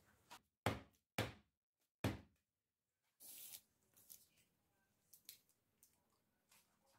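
Metal springform cake pan filled with batter knocked down on a wooden table three times in quick succession, sharp knocks to settle the batter, followed by a short rustle and a few light knocks as the pan is handled.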